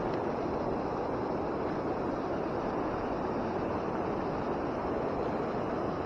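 Steady rush of water pouring over a low waterfall and running through the shallow river.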